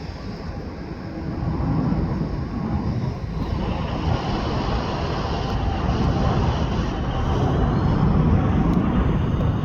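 Jet airliner's engines heard close by, growing steadily louder, with a steady high-pitched whine coming in a few seconds in.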